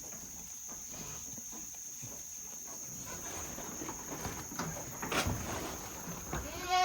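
Goats jostling and feeding at a pile of cut grass: rustling stalks and small knocks of hooves, getting busier after about three seconds, with a goat starting to bleat at the very end.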